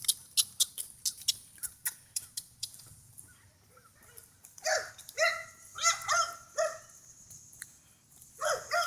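Pit bull barking: a quick series of about five short barks about halfway through, and one more near the end, after a run of light clicking taps.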